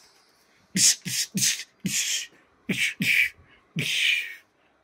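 Mouth-made gunfire sound effects: about seven short hissing bursts in quick succession, each starting with a small pop, the last one longer.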